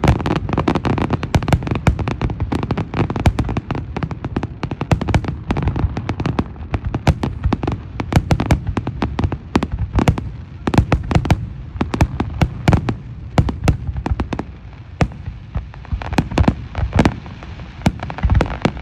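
Fireworks going off in a rapid, continuous barrage: many sharp bangs and pops a second over a low rumble.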